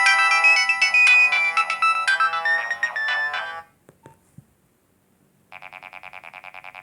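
Nokia 1208b ringtones. A melody of quick, bright electronic notes plays and stops a little past halfway. After a couple of faint clicks and a moment of near silence, the next ringtone starts more quietly: a rapid pulsing tone repeating about six or seven times a second.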